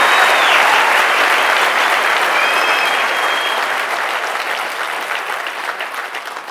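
Large auditorium crowd applauding, the clapping gradually dying away.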